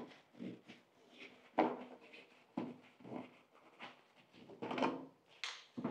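A series of separate knocks and clatters, about one a second, from objects being handled and set down on a hard surface, with a louder pair near the end.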